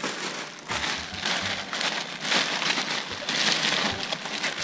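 Large clear plastic bag full of plastic ball-pit balls rustling and crinkling as it is grabbed and handled, loudest in the second half.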